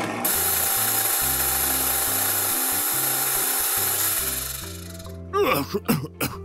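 Insect-repellent spray hissing in one long continuous burst of about four seconds, then fading out.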